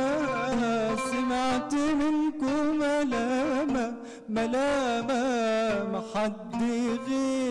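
A male voice singing an Arabic song with an ornamented, wavering melody, accompanied by an oud, with brief pauses for breath twice.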